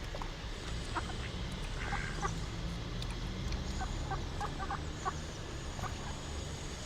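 A series of short bird calls, scattered, with several close together midway, over a steady low rumble.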